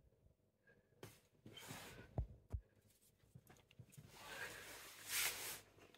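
A British Shorthair cat's faint, breathy grumbling growl with a feather toy in its mouth, strongest near the end, with two soft low thumps a little past two seconds in.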